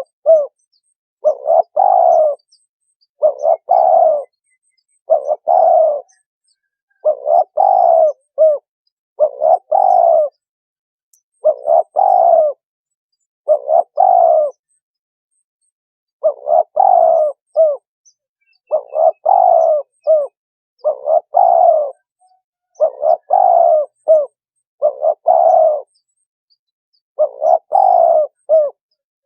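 Spotted dove cooing: a short, low coo phrase repeated about every two seconds, with a couple of slightly longer pauses.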